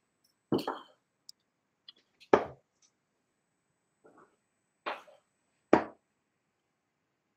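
Four short, sharp knocks a second or more apart, with a fainter one between the second and third.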